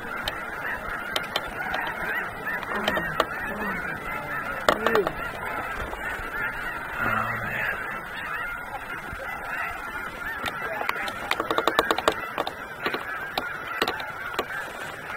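A large flock of snow geese calling: a dense, continuous chorus of honking, with scattered nearer calls standing out and a cluster of them about eleven seconds in.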